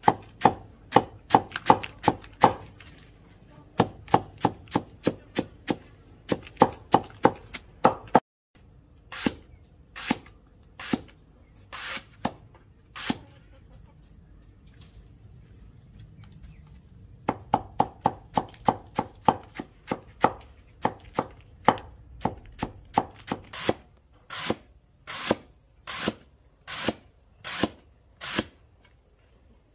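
Chopping with a blade on a wooden block or board: runs of quick strokes, about three a second, alternating with slower, heavier strokes about one a second. There is a pause of a few seconds in the middle.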